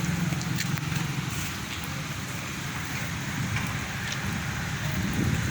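Steady rain falling, with scattered sharp drop ticks, over a fluttering low rumble.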